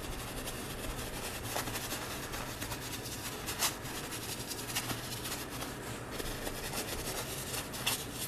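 Paintbrush scrubbing and dabbing paint onto a stretched canvas: a dry scratchy rubbing made of many small strokes, with a few sharper taps, the loudest about three and a half seconds in and another near the end, over a steady low hum.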